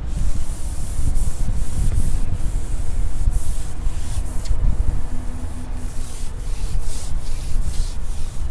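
Wind buffeting the microphone outdoors: a steady low rumble with gusty hissing rustle that swells and fades every half second or so.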